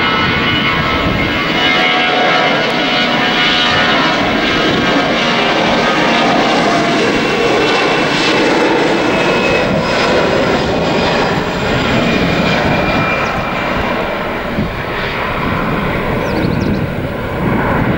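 Airbus A320 jet engines running at high power for takeoff: a steady roar with high whining fan tones, easing slightly in the last few seconds.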